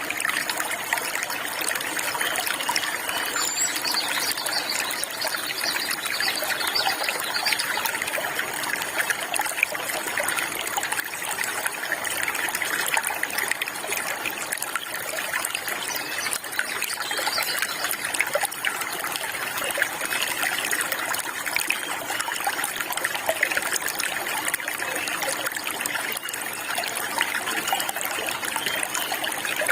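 Water trickling and flowing steadily over stones, like a small stream, with faint bird chirps now and then.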